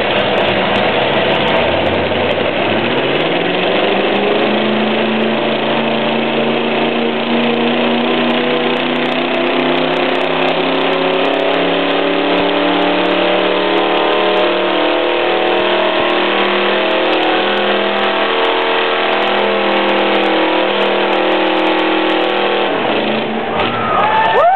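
Four-wheel-drive pickup truck doing a burnout: the engine is held at high revs with its pitch slowly climbing for about twenty seconds as the tyres spin, then it drops off near the end. Whistles and cheering start right as it stops.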